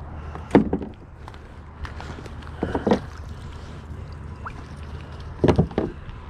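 Knocks and bumps on a kayak, three short loud clusters about two and a half seconds apart, over a steady low rumble.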